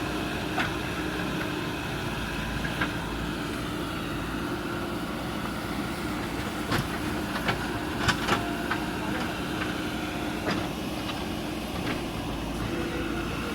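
JCB backhoe loader's diesel engine running steadily, with a scattering of sharp knocks, several close together about two-thirds of the way through.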